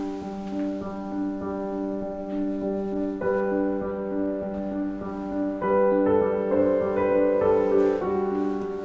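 Background piano music: a note repeating about twice a second over held chords, with the chord changing about three seconds in and again near six seconds.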